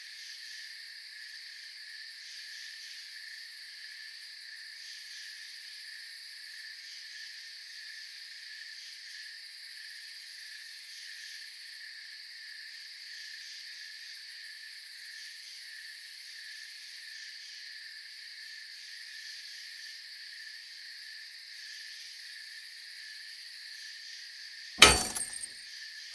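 Steady woodland ambience of insects chirping in a continuous chorus. About a second before the end, a sudden loud breaking crash.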